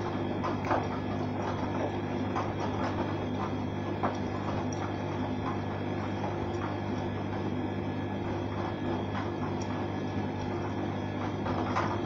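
Arçelik front-loading washing machine running its wash, the drum turning with a steady motor hum and scattered small knocks as the laundry tumbles.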